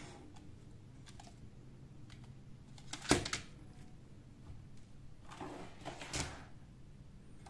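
Handling noise: a plastic LED strip reel is set down on a cutting mat with one sharp clack about three seconds in, then a shuffle and a knock about six seconds in as a computer power supply's metal case is brought over.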